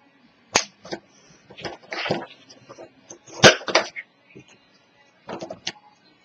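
Card stock and craft tools being handled on a cutting mat: a series of sharp taps, clacks and short paper rustles, the loudest about three and a half seconds in.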